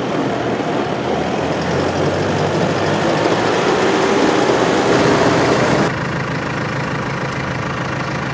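The 2016 New Holland T4.65's four-cylinder turbocharged diesel runs as the tractor drives past, growing louder as it nears. About six seconds in the sound drops suddenly to a steadier, quieter engine idle.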